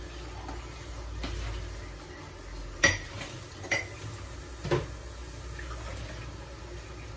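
Dishes clattering against each other and a plastic dish rack as they are handled: three sharp knocks about a second apart, the first the loudest.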